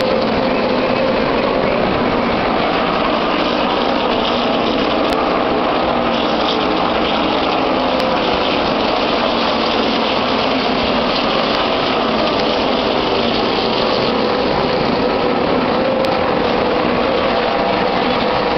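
Field of NASCAR Cup stock cars with pushrod V8 engines racing around the oval, their engine noise merging into a loud, steady, unbroken wall of sound.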